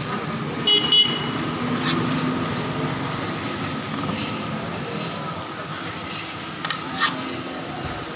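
Steady street traffic noise, with a short high vehicle horn toot about a second in and a couple of sharp clicks.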